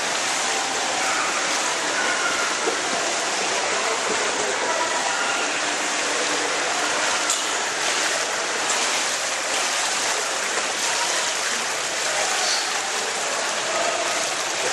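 Steady wash of pool water lapping and splashing against the wall and overflow gutter, echoing in an indoor pool hall, with faint voices underneath.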